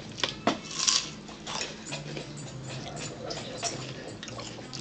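A metal fork clinking and scraping against a ceramic dinner plate: a few sharp clicks in the first second, then softer ones.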